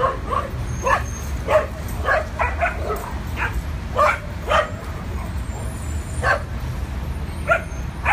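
Dogs barking in short, sharp barks, about two a second for the first few seconds, then only a few scattered barks, over a steady low rumble.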